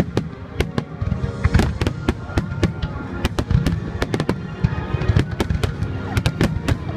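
Aerial fireworks shells bursting in quick succession, many sharp cracks and bangs a second, with music playing underneath.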